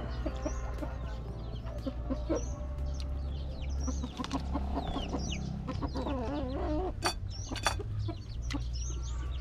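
Chickens clucking in short, repeated calls, with high short chirps over them and two sharp clicks about seven seconds in.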